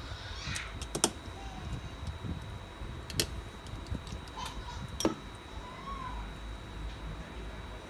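Sharp metal clicks and taps of tweezers and small parts against an opened iPhone 7 and the bench. Three louder clicks come about one, three and five seconds in, with quieter ticks between.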